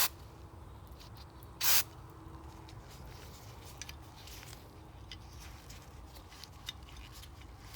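One short burst of aerosol carburettor cleaner hissing from the spray can into a plastic lawn mower carburettor about a second and a half in, followed by faint clicks of the part being handled.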